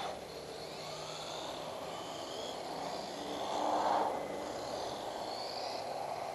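Small electric RC car (WLtoys A959 with its 390 brushed motor) driving: a steady hiss of motor and tyres with a faint whine that rises and falls with the throttle, getting louder about four seconds in.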